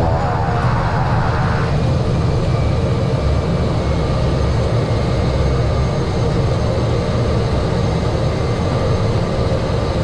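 Steady loud drone of a single-engine airplane's engine and propeller, heard inside the cockpit as the plane rolls along the runway.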